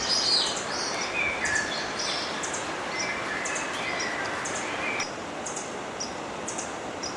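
Several birds chirping and calling over the steady rush of river water. The chirping thins out about five seconds in, leaving mostly the water with faint, high chirps.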